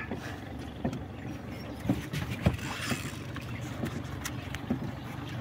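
Small boat on the water: water moving against the hull, with a low steady hum underneath and a few light knocks, the loudest about two and a half seconds in.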